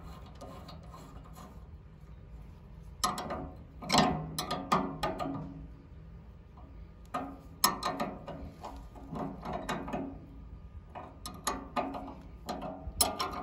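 Steel spanner clicking and clinking on a nut of a Ferguson TD20 tractor's governor linkage as the nut is tightened, in three bursts of quick metallic clicks and rattles a few seconds apart.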